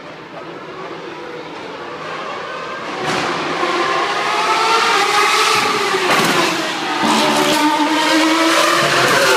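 Formula One cars' 2.4-litre V8 engines running at high revs on the circuit. The engine note builds over the first three seconds and then stays loud, its pitch sliding up and down as cars pass.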